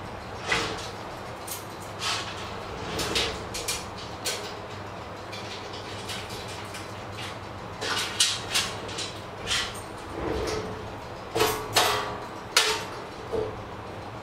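Iron trolley's shelf plate and frame being handled and fitted together: irregular metal knocks and clanks, some with a short ring, bunching up in the second half.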